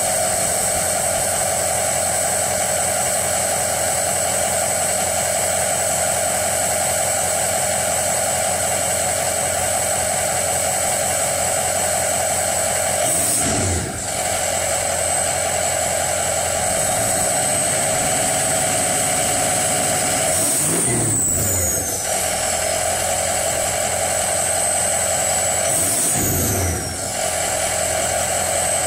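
Ford 6.0 Power Stroke V8 turbo diesel idling with a steady high turbo whistle over the engine drone. The engine is revved briefly three times, and after each rev the whistle sweeps down in pitch as the turbo spins back down.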